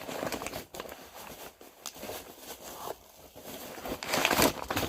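Packing material rustling as an alarm is handled and unwrapped, with scattered small clicks and knocks; it gets louder near the end.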